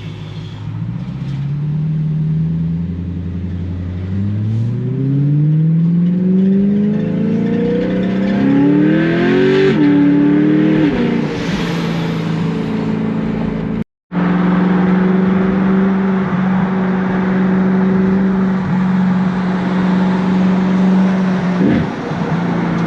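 BMW E92 M3's V8 engine accelerating through the gears, its note climbing in pitch and falling back at each shift, then holding a steady note at cruise after a momentary dropout in the sound.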